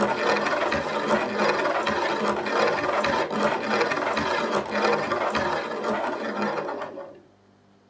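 Homopolar magnet motor's arm spinning, its disc magnets rolling and rattling along the metal ring tracks with a dense scraping clatter. The sound stops about seven seconds in, falling away within half a second, as the battery lead is unclipped.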